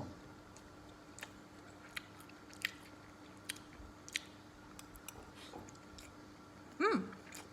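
A person eating a mouthful of egg fried rice: quiet chewing with scattered small sharp clicks. Near the end comes a short hummed sound from the eater that bends up and then down.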